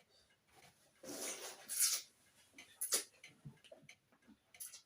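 Close-up eating sounds from a person chewing and crunching food such as raw vegetables and papaya salad: a crunchy bite and chewing about a second in, a sharp click near the middle, then light small clicks.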